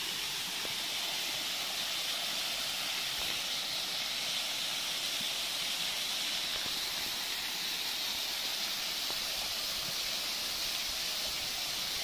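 Small waterfall spilling in thin streams over rocks into a pool below: a steady splashing hiss of falling water.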